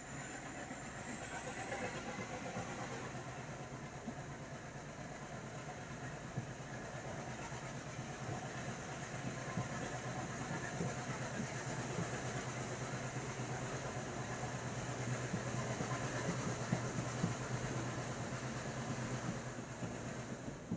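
Diesel-hauled passenger train running, heard from on board: a steady rumble of wheels and running gear over a low hum, with a thin high whine rising slowly in pitch throughout.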